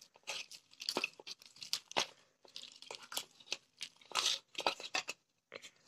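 Hands kneading soft maida dough worked with ghee in a steel bowl: a run of short, irregular pressing and tearing sounds, several a second.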